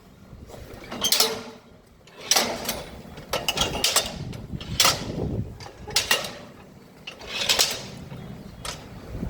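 Irregular clattering knocks, several sharp hits a second or so apart, each with a bright ring like objects striking metal.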